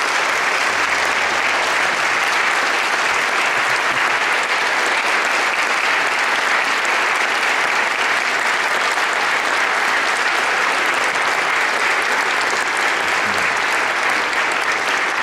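Sustained applause from a church congregation and choir, many pairs of hands clapping densely and steadily, with nearby hands close to the microphone.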